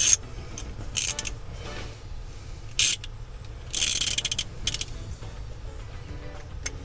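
Hand tool working a screw out of a steering column: short bursts of quick ratchet-like clicking, the longest run about four seconds in.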